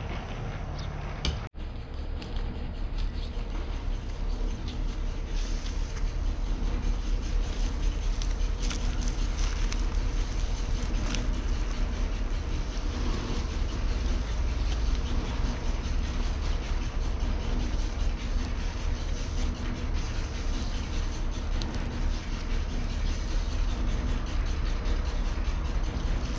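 Steady low outdoor background rumble with faint scrapes and taps of wet cement mortar being worked by hand over a concrete stone form; the sound briefly cuts out about a second and a half in.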